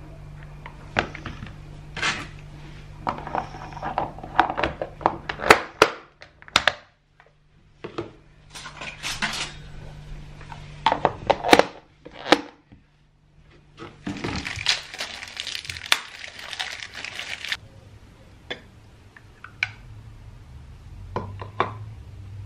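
Plastic food-storage containers being handled and a clip-lock lid pressed on: a series of separate knocks and clicks, with a few seconds of rustling noise about two-thirds of the way through.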